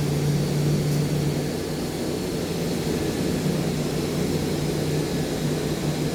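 Steady low machine hum with a droning tone and no breaks, from welding-shop machinery running.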